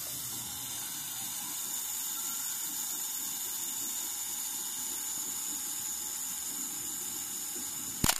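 Pentax SP's mechanical self-timer running down with a steady whirring buzz, then the shutter fires with a sharp click near the end.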